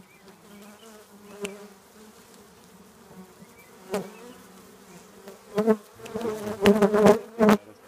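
Honeybees humming steadily in an opened hive. A couple of single knocks, then a run of louder knocks and clunks in the last couple of seconds.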